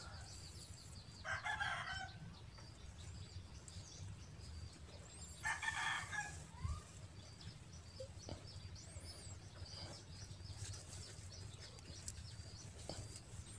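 Two loud animal calls, one about a second in and one about halfway through, over faint high chirping that goes on throughout.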